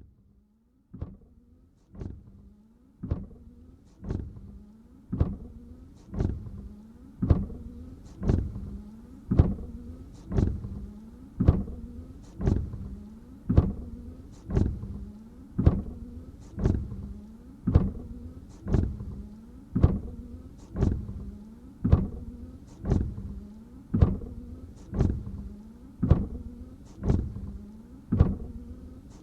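Car windshield wipers sweeping across a dry windshield with no washer water, about one stroke a second. Each stroke starts with a sharp tap, followed by the wiper motor's hum. The strokes grow louder over the first few seconds and then hold steady.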